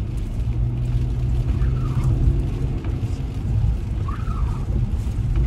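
Car cabin noise while driving on a wet road: a steady low rumble from the engine and tyres. The windshield wiper blades squeak on the glass twice, about two seconds apart. They still squeak even though the blades have already been replaced.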